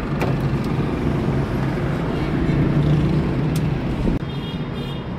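Steady low rumble of street traffic, with a few sharp crackles from split wood burning in a stove firebox. The rumble drops a little about four seconds in.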